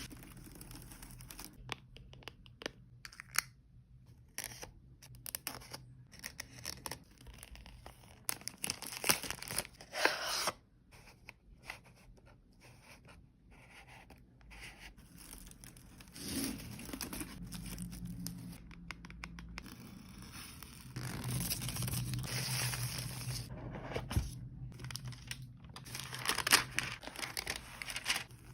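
Car-mat packaging being torn open by hand: tearing and crinkling of the wrapping in irregular bursts, loudest about ten seconds in and again near the end.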